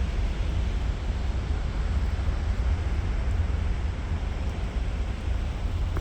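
Wind buffeting the phone's microphone, a steady low fluttering rumble with a faint hiss above it.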